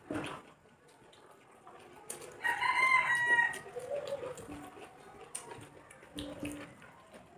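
A rooster crowing once, about two and a half seconds in. The crow lasts just over a second and ends in a lower, falling tail.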